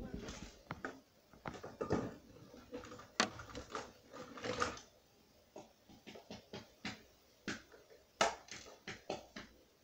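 Irregular knocks, taps and rustles of things being handled close to the microphone, with no steady rhythm; the loudest knocks come about three seconds in and about eight seconds in.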